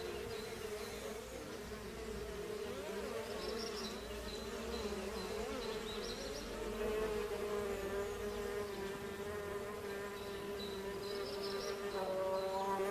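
Bees buzzing: a steady drone whose pitch wavers as several overlapping buzzes come and go, growing louder and fuller about twelve seconds in. Faint short high chirps sound every few seconds.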